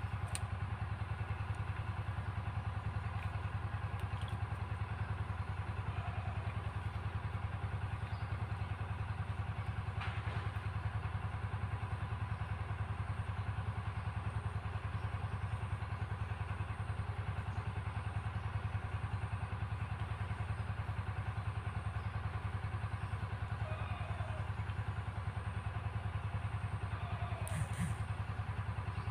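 A small engine running steadily at one speed as a low, even drone, with a faint click or two.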